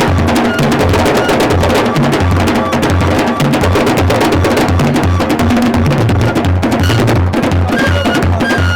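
Idoma traditional drums playing a dense, fast rhythm of sharp strikes over deep drum strokes that repeat steadily, about twice a second.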